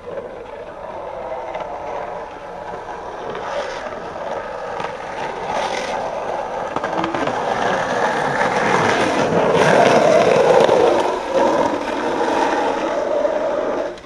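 Skateboard wheels rolling over rough pavement with a steady grinding rumble, growing louder toward a peak about ten seconds in and easing a little after.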